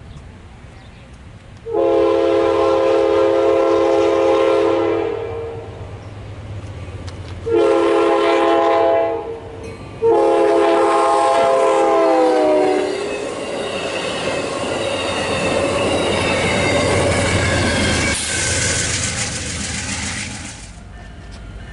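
Amtrak Genesis diesel locomotive sounding its multi-note air horn for a grade crossing as it approaches: a long blast, a shorter one, then another long blast that drops in pitch at its end. The rising rumble of the oncoming passenger train follows and grows loudest near the end.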